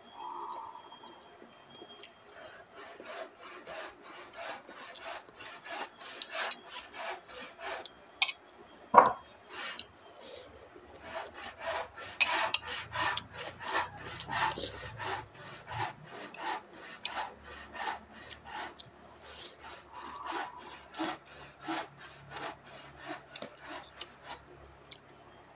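Hand saw cutting wood in steady, even strokes, about two a second, with one sharp knock about nine seconds in.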